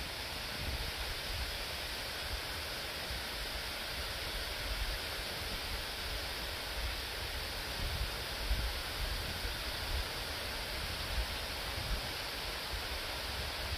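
Steady wind noise outdoors: a constant hiss of wind through leaves, with an uneven low rumble of gusts buffeting the microphone.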